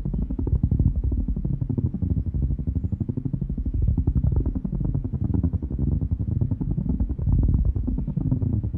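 Designed sci-fi spaceship engine ambience: a deep, rapidly throbbing low rumble with a phasing sweep that rises and falls every second or two.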